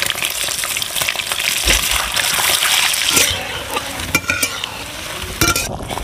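Whole boiled eggs frying in hot oil in an aluminium kadhai: a dense, crackling sizzle. The sizzle eases about three seconds in, and a few sharp knocks follow near the end.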